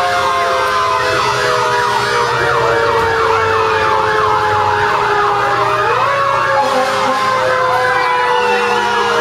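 Fire truck sirens sounding together. One runs a fast yelp, rising and falling about three times a second. Under it, a long wail slowly falls in pitch and lifts briefly about six seconds in.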